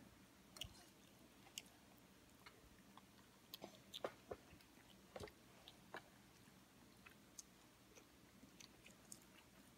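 Faint toddler chewing: scattered soft mouth clicks and smacks, with a few small taps that fit a plastic fork on a high-chair tray or plate. The clicks are loudest around the middle.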